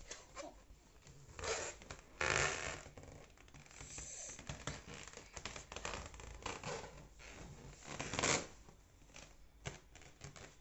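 A balloon being rubbed and batted by hands, giving scratchy rubbing noises in bursts, loudest about two seconds in and again about eight seconds in.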